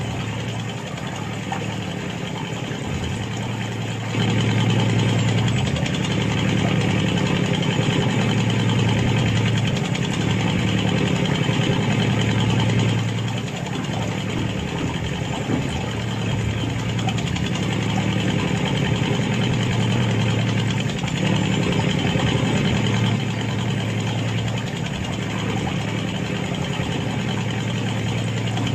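Mini tractor's engine running steadily while ploughing. It gets louder about four seconds in and eases off somewhat later, as the load or throttle shifts.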